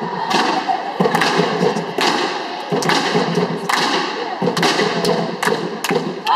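A drum corps striking marching drums in unison: sharp, accented hits, irregularly spaced and roughly every half second, echoing through a large sports hall.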